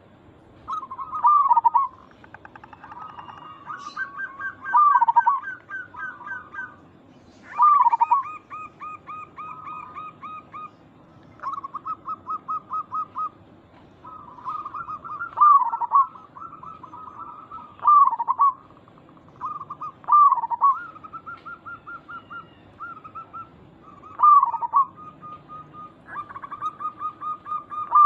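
Zebra doves (perkutut) cooing. Loud accented notes come every two to three seconds, each followed by a rapid run of short repeated notes, and at times two runs at different pitches overlap.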